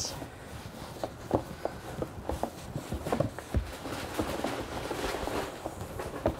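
A cloth rag rubbing and wiping the inside of a plastic litter box, with scattered light knocks of the box being handled and turned.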